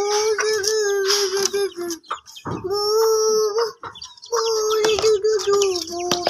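Rooster crowing: three long calls, one after another.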